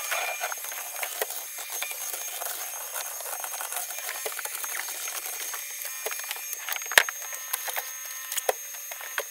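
Canister vacuum running with a steady high motor whine while bits of soot and debris click and rattle through the hose, with one sharp knock about seven seconds in.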